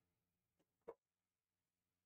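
Near silence broken by two short clicks about a second in, the second louder: trading cards being handled and set down.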